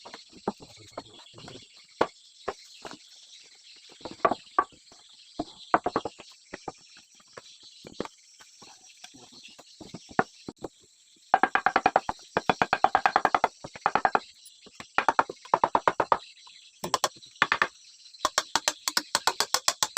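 Scattered single sharp knocks, then from about halfway several runs of rapid clicking pulses, each a second or more long and about ten a second. Under it all runs a steady high chirring of crickets.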